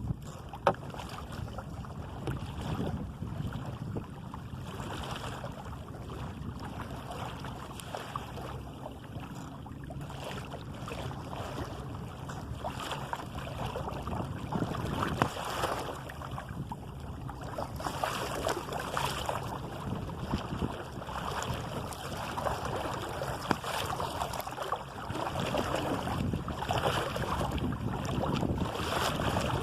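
Water washing and lapping along the hull of a sailing canoe under way, with wind buffeting the microphone. A single sharp knock sounds about a second in.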